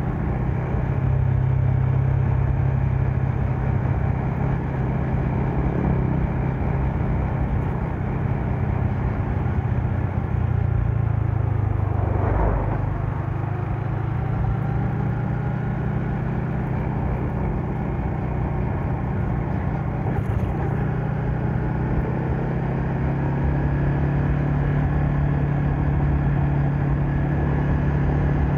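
Yamaha MX King motorcycle's 150 cc single-cylinder four-stroke engine running steadily while riding, a constant low hum with road and wind noise, and a brief louder swell of noise about halfway through.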